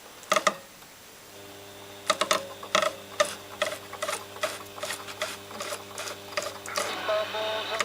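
Old STC valve radio's loudspeaker playing a broadcast: a steady low hum with a regular run of sharp clicks, about three a second, starting about two seconds in.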